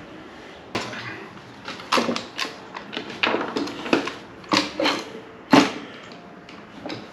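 Irregular clicks and knocks, about a dozen over five seconds with the loudest near the end, from tools and the wooden humidor being handled on a workbench during a glue-up.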